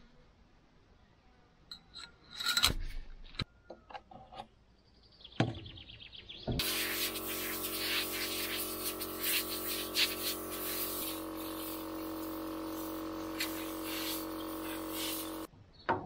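Light clinks and knocks of metal parts being handled on an engine's air cleaner, then a steady machine hum with a hiss that starts abruptly, shifts in tone partway through and cuts off abruptly near the end.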